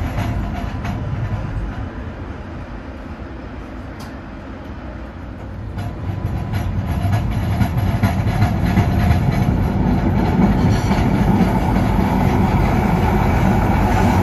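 Inside an MBTA Green Line light-rail car pulling out of a station. The running noise is quieter for a few seconds, then rises from about halfway through as the train gathers speed, with scattered clicks from the wheels on the track.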